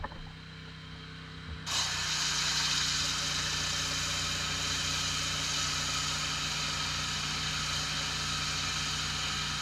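Pressure washer running with a steady hum; about one and a half seconds in, a loud, even hiss of high-pressure water spray starts and keeps going.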